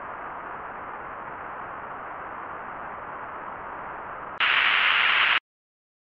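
Steady hiss of broadcast static. About four and a half seconds in, a much louder, harsher burst of static lasts about a second, then cuts off abruptly to silence.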